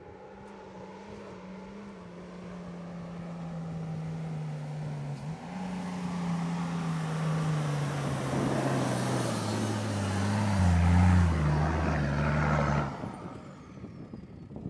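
A four-wheel-drive truck's engine running as the truck drives up and close past, growing steadily louder while the engine note falls in a few steps. The sound cuts off suddenly about two seconds before the end.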